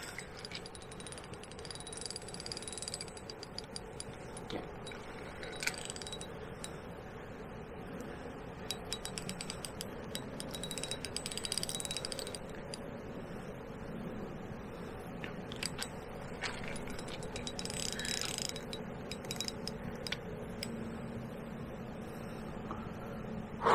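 Shimano Exage FD fixed-spool reel being cranked while a hooked barbel is played, its gears and ratchet ticking, with louder bursts of winding several times.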